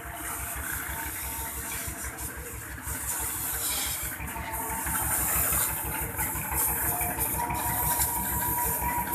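Water from a hose spraying against the underside and wheels of a cargo three-wheeler, over the steady, even throb of an idling engine. The spray hiss grows louder about halfway through.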